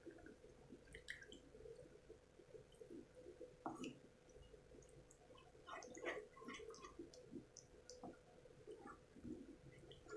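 Faint stirring of thin white sauce in a frying pan with a wooden spatula: soft wet squishing and scattered light clicks of the spatula against the pan, over a faint steady hum.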